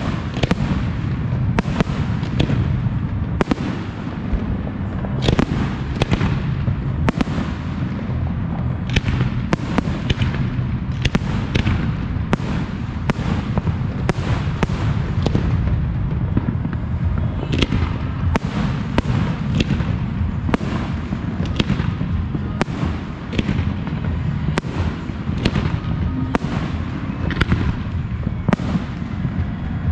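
Aerial fireworks display: shells bursting in quick succession, a steady run of sharp bangs, about one or two a second, over a continuous low rumble.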